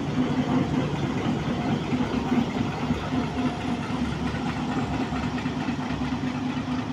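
HBU-20 diesel-electric locomotive rolling slowly past, its diesel engine running with a steady hum.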